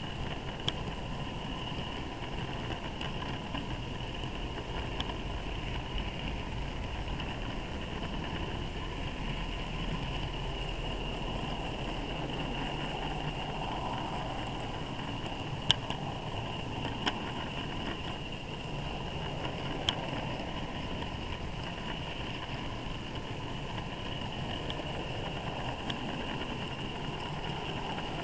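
Model freight train running along the track, heard from a wagon in the train: a steady rolling, whirring running noise, with a sharp click now and then as the wheels cross rail joints and pointwork.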